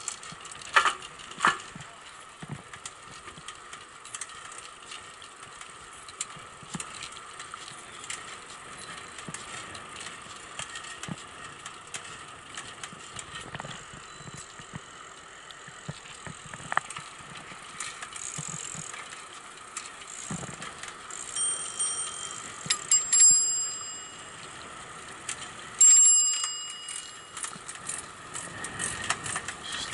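Bicycle ridden along a paved path, with steady tyre and drivetrain noise and occasional clicks and rattles. A bicycle bell is rung in two short bursts about two-thirds of the way through, the second a few seconds after the first.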